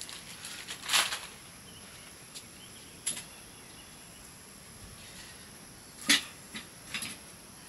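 About five short, sharp clicks, unevenly spaced, the loudest about six seconds in, over a faint steady high-pitched whine.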